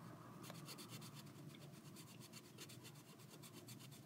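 Black pen scribbling rapidly back and forth on sketchbook paper, shading in a small area; a faint scratching of quick, even strokes.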